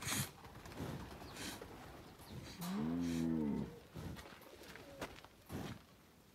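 American bison giving one call, about a second long, rising then falling in pitch, about three seconds in.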